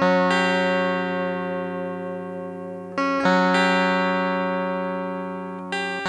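Slow guitar chords strummed and left to ring out, with a new chord struck about every three seconds.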